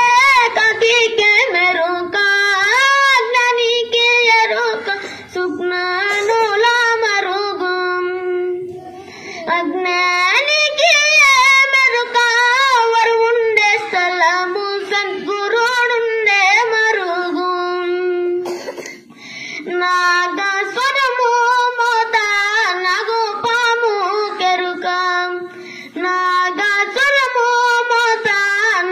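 A boy singing solo and unaccompanied into a handheld microphone, holding long notes with a wavering ornament on them, with short breaks for breath three times.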